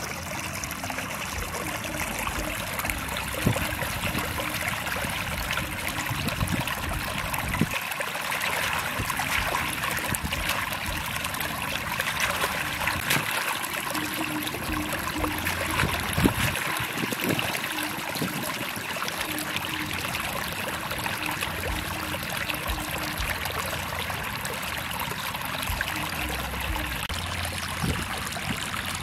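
Water trickling and running steadily in a shallow paddy-field channel, with a few louder thumps, the loudest about two-thirds of the way through.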